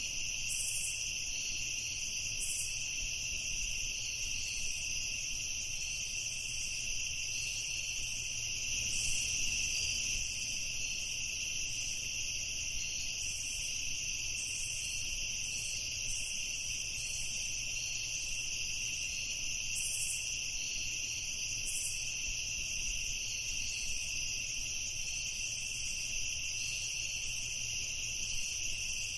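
Night chorus of crickets and other insects: a continuous high trilling that holds steady, with short, higher chirps dotted irregularly over it.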